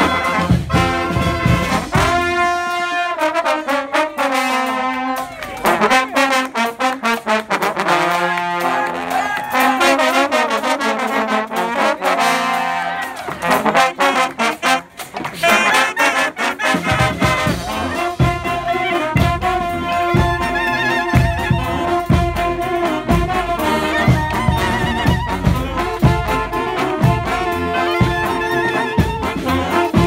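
Brass-and-reed street band of saxophones, clarinet, trombones, trumpets, sousaphone and drums playing an up-tempo tune. About two seconds in, the drums and low brass drop out and the horns play alone in swooping phrases. The full band with drums comes back in around seventeen seconds.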